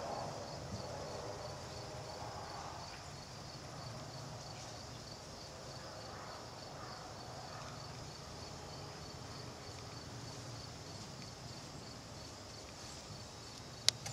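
Quiet ambience with a steady low hum and a faint, high, evenly repeating ticking, and a single sharp click near the end.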